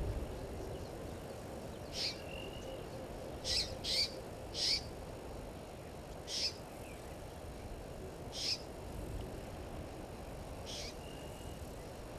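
Blacksmith lapwing giving sharp, metallic "tink" calls, seven of them at irregular intervals, a couple followed by a brief thin whistle.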